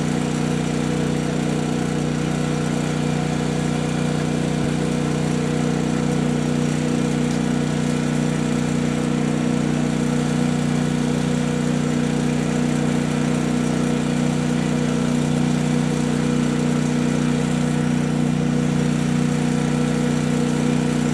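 Generator and air compressor running steadily, a constant engine hum with several fixed tones, as they charge the air cannon's pressure system.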